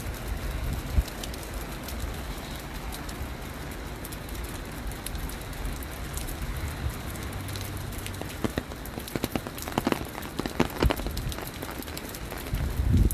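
Rain falling with a steady hiss, and a run of sharp crackling taps in the second half. There are low thumps near the start and the end.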